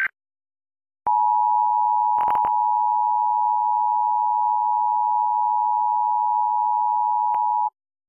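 Emergency Alert System two-tone attention signal for a Required Monthly Test: a steady, unwavering two-note beep that starts about a second in and holds for about six and a half seconds before cutting off. A short tail of the digital header data bursts ends just at the start, and a couple of brief clicks break across the tone about two seconds in.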